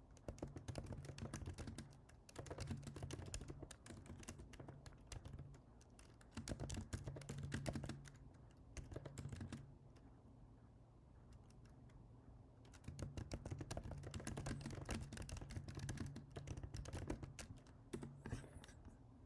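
Computer keyboard typing in quick runs of keystrokes, with a pause of about three seconds midway.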